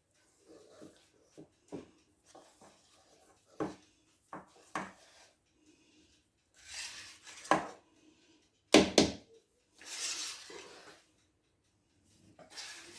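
Cake batter being stirred by hand in a mixing bowl: a utensil knocking and scraping against the bowl in irregular strokes, with a few longer, louder scrapes in the second half.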